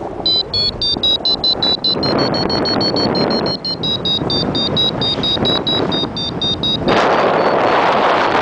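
Flight variometer beeping rapidly, short high beeps several times a second, the sign of the glider climbing in lift, over wind rushing on the microphone. The beeps stop about seven seconds in and the wind noise grows louder.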